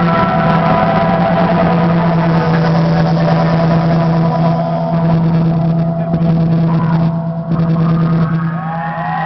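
Rock band's amplified instruments holding one long, steady chord over a low drone as the song rings out. Near the end the crowd starts whooping and whistling.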